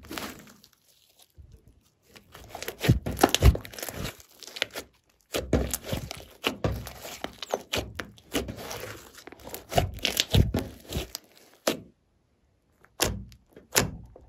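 Hands squeezing, kneading and poking glossy slime: irregular sticky clicks and squelching pops, with two short pauses.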